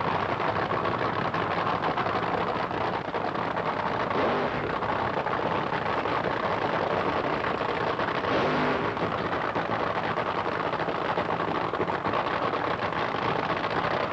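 Supercharged V8 fuel engine of a drag-racing funny car running steadily on the drag strip.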